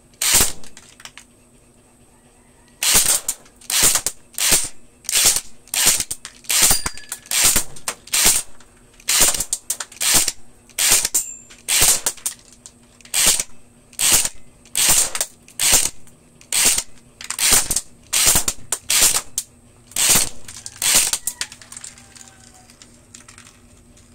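Airsoft rifle firing single shots one after another, about one to two a second, stopping about three seconds before the end.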